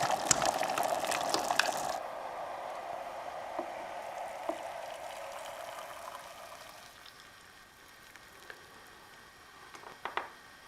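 Water at a rolling boil in a Proctor Silex electric kettle, a crackling bubbling hiss that gradually dies away over several seconds as the boil subsides. A few faint clicks near the end.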